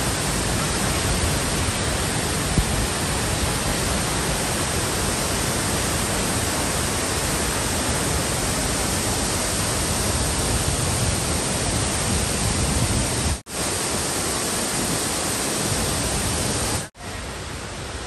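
Wachirathan Waterfall in heavy flow: a loud, steady rush of falling water. Near the end the sound drops out briefly twice and comes back somewhat quieter.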